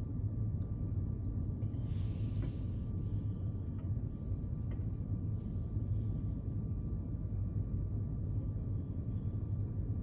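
A car idling, heard from inside its cabin as a steady low rumble. A short hiss comes about two seconds in.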